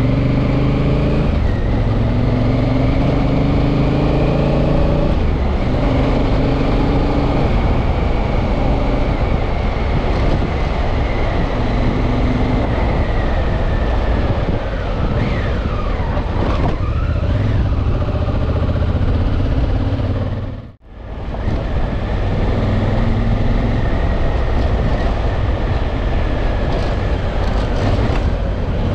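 Honda Africa Twin's parallel-twin engine running under way, its note rising in steps as it pulls through the gears early on, over steady wind rush. The sound drops out sharply for a moment about twenty-one seconds in, then the engine and wind resume.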